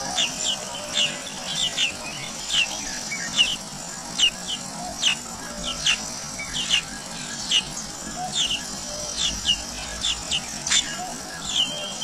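Songbird nestlings begging at the nest while being fed: short, sharp high chirps repeated a few times a second, over a faint steady high hum.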